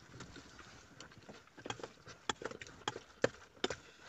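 Eating noises close to the microphone: a string of irregular sharp clicks and smacks, starting about a second in, from chewing and from food and cutlery being handled.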